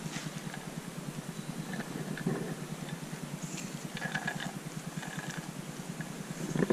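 A steady, fast-pulsing low machine hum from something running in the background, with a few faint clicks and scrapes as a tractor differential with its ring gear is handled and turned by hand.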